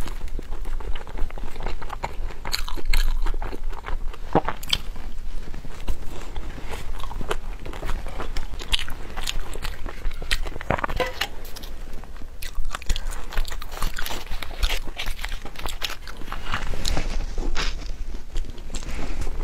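Close-miked chewing and biting of a soft dessert, with a dense run of small, irregular wet mouth clicks.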